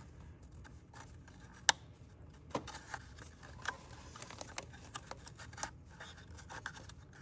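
Plastic bypass vacuum tube and its clip being worked loose by hand from the engine: scattered small plastic clicks and scrapes, the sharpest about one and a half seconds in.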